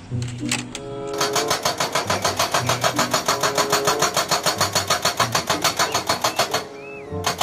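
Hydraulic breaker on a Komatsu excavator hammering rock in a rapid, even run of about ten blows a second. It starts about a second in, stops briefly near the end and starts again. Background music plays underneath.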